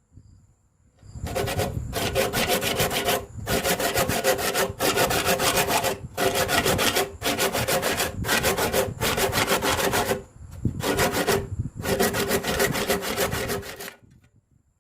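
A hand tool scraping against wood in repeated strokes, each about a second long, with brief pauses between them and a longer pause near the end.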